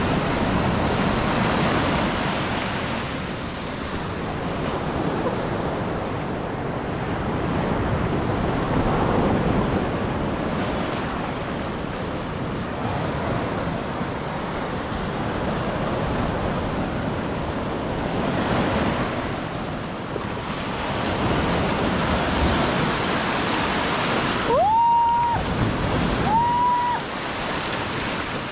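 Rough sea surf breaking and washing ashore, swelling and fading every few seconds, with wind on the microphone. Near the end, two short high whistle-like tones, each rising and then held briefly.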